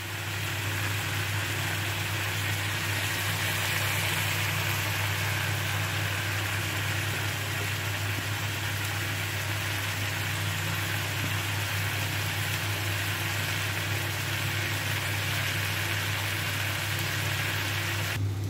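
Masala-coated raw banana, papaya and potato pieces sizzling steadily in the pan over a steady low hum; the sizzle stops just before the end.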